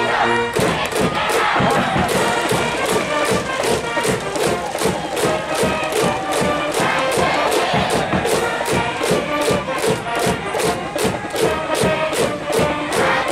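A Japanese high school baseball cheering section in the stands: a brass band playing a fight song over a steady drumbeat of about three strikes a second, with the crowd chanting along.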